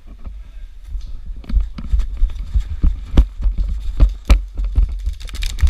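Running footsteps with gear knocking and rattling: irregular sharp knocks over heavy low thumping, which start about a second and a half in and grow louder.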